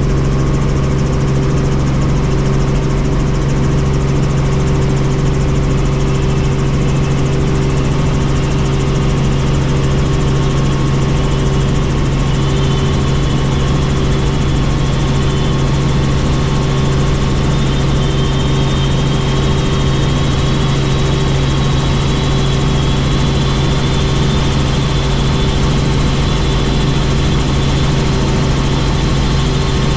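Helicopter running steadily: a loud, constant drone of engine and rotors, with a faint high whine coming in about twelve seconds in.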